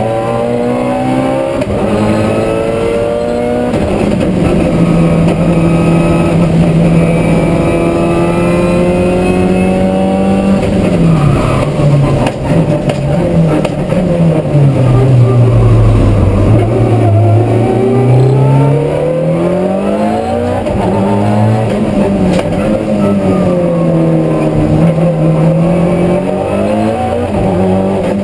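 Race car engine heard from inside the cabin during a track lap, its pitch rising and falling repeatedly with the throttle. It drops to its lowest a little past the middle, then climbs again, with a few sharp knocks just before that dip.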